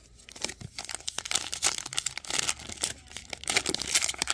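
A 2023 Topps Allen & Ginter trading-card pack wrapper being torn open and crinkled by hand: a dense, sharp crackling that starts about half a second in and grows louder toward the end.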